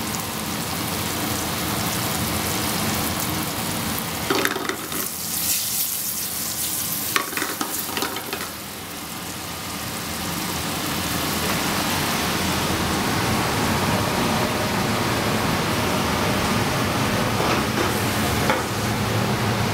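Diced guanciale sizzling steadily in its rendered fat in a hot pan. A few knocks and rattles come from about four to eight seconds in.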